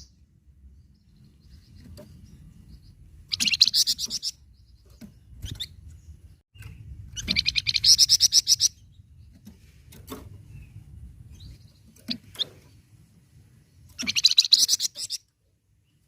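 A flamboyan songbird calling: three bursts of fast, rattling chatter about a second long each, with a few single sharp chips between them.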